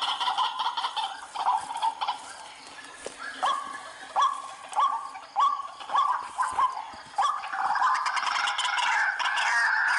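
White-breasted waterhen calling: a dense chatter at first, then a run of separate short croaks that rise in pitch, roughly one every three quarters of a second, then a continuous rapid chatter building again near the end.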